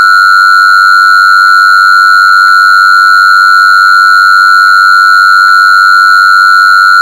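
A loud, steady, high-pitched electronic tone that holds one pitch without change, with fainter higher tones sounding above it.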